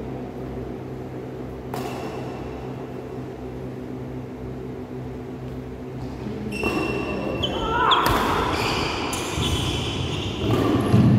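Badminton rally in an echoing sports hall: racket hits on the shuttlecock and shoes squeaking on the court floor, growing busier about halfway through, over a steady low hum.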